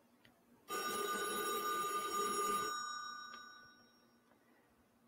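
Landline telephone ringing: one ring that starts under a second in, holds for about two seconds, then dies away over the next second or so.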